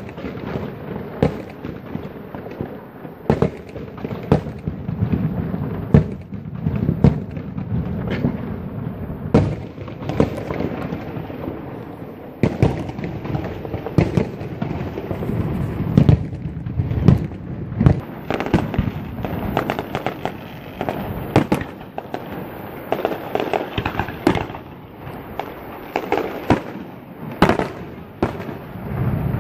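Fireworks display: aerial shells bursting in a dense, unbroken run of sharp bangs, several a second at the busiest points.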